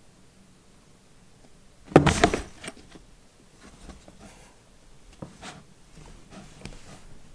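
Cardboard box scraping and bumping as a cat scrambles into it: one loud scuffle about two seconds in, then lighter scratching rustles of paws on the cardboard.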